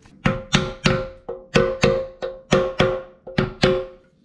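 About a dozen sharp hammer blows, roughly three a second, each with a short ringing tone, forcing a garbage disposal mounting ring onto the drain flange of a stone farm sink; the ring will not seat.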